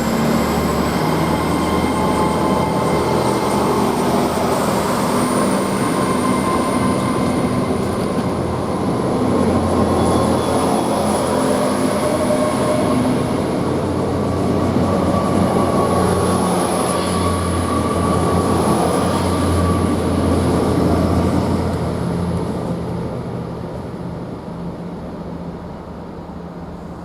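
Great Western Railway Class 800 bi-mode train pulling out on its underfloor diesel engines. The engines run steadily under power, and a high whine climbs in pitch as it accelerates. The sound fades away over the last few seconds as it draws off.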